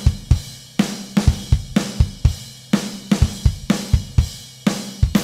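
Recorded rock drum kit playing a steady beat: kick, hi-hat and cymbals, with the original snare replaced by a sampled snare from Logic Pro X's Drum Kit Designer, triggered at near-full velocity.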